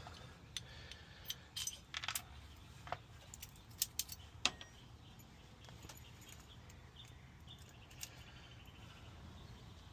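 Small metal lock parts and keys handled during a Kwikset rekey: light scattered clicks and taps, mostly in the first half, with a faint ratcheting rattle about three-quarters of the way through.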